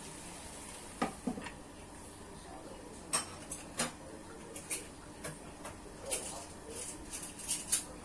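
A glass lid set down on a frying pan of stir-fried celery, with a couple of knocks about a second in. After that come irregular sharp ticks and pops from the covered pan as it cooks, over a faint steady hiss.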